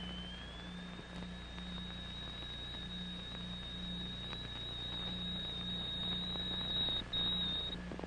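A steady, high-pitched pure test tone drives a static cymatic (Chladni-type) sound figure. It glides slightly upward in the first second, then holds, and cuts off shortly before the end. A faint low hum lies under it.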